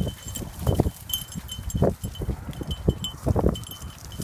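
Footsteps thudding and brushing through undergrowth about once a second, with a faint high metallic jingling over them.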